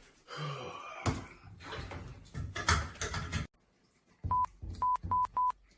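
Short electronic beeps, all at one pitch, from an entry keypad as buttons are pressed: four quick beeps in the last second and a half. Before them, a stretch of knocks and rustling.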